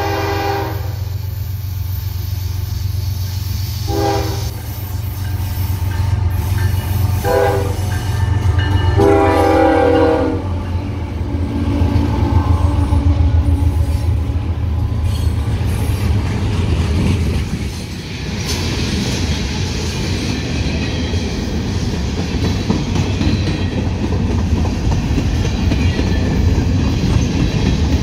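CSX freight train passing: the diesel locomotive's horn sounds four blasts in the first ten seconds, the last the longest, over the steady rumble of the engines. The freight cars then roll by with wheels clattering on the rails.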